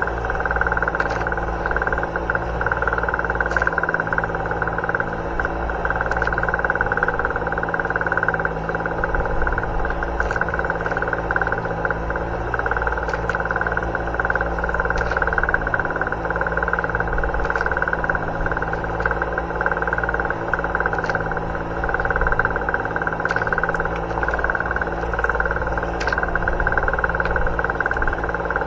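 Boat engine running steadily with a constant drone, with a few faint clicks over it.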